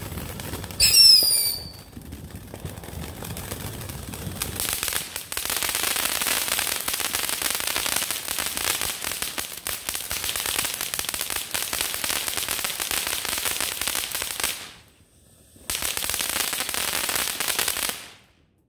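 Ground fountain fireworks spraying sparks. A short, loud whistle falls in pitch about a second in. From about four seconds in comes a steady loud hiss laced with crackling, which cuts out briefly about three-quarters of the way through, returns, and stops abruptly near the end.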